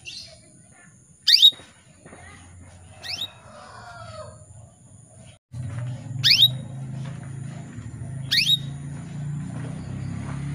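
Female canary calling: four short, sharp call notes that sweep steeply down in pitch, a second or two apart, with fainter chirps between them. A low steady hum runs underneath from about halfway.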